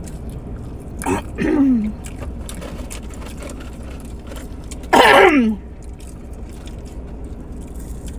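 A woman's voice making two short wordless sounds that fall in pitch, one about a second in and a louder one about five seconds in, over faint chewing ticks and a steady low hum.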